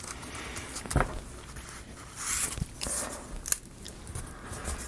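Laser-cut plywood model-kit pieces being handled and pushed out of their sheet: a few sharp wooden clicks, the loudest about a second in, with light scraping and rustling around the middle.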